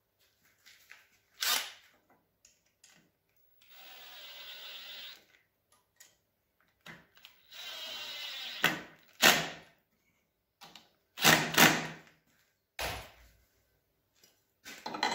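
Cordless 18 V drill-driver driving screws into a wooden block in two runs of about a second and a half each, with a whirring motor. A few sharp knocks come between and after the runs.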